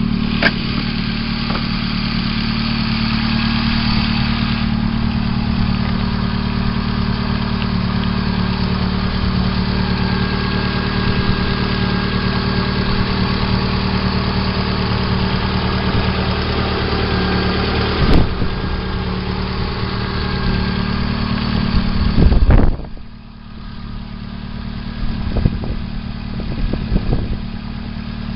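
VAZ-2112 engine idling with a knock from the cylinder head that new hydraulic lifters, oil and filter have not cured; the owner says it grows as the engine warms while oil pressure falls to about 1 kgf/cm² at idle. A loud rumble comes about 22 seconds in, after which the engine sounds quieter.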